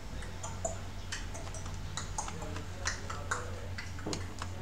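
Irregular small metallic clicks and taps of a precision screwdriver working the screws of an opened laptop, over a steady low hum.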